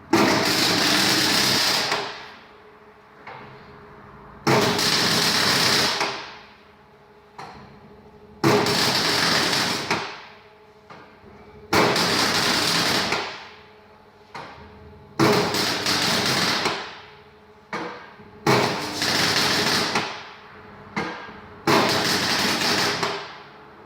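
Electric welder tack-welding the two halves of a cut and widened steel wheel rim: seven separate bursts of arc crackle, each lasting one and a half to two seconds and starting suddenly, to hold the rim together before full welding.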